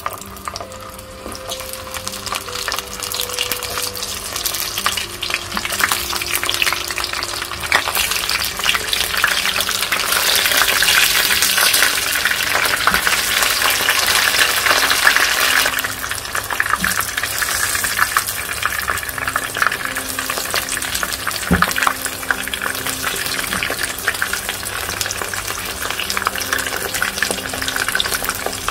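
Pieces of besan-based vegetarian 'fish' frying in plenty of hot oil in a karahi over medium heat: a steady, dense sizzle and crackle, loudest from about ten to sixteen seconds in.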